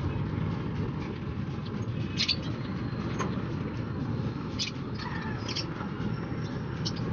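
Caged African lovebirds giving short, high-pitched chirps every second or two, over a steady low background rumble.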